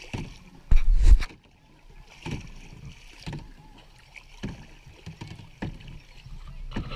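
Kayak paddle strokes dipping and splashing in calm water, about one a second, from a double-bladed paddle on a tandem kayak. A loud low thump comes about a second in.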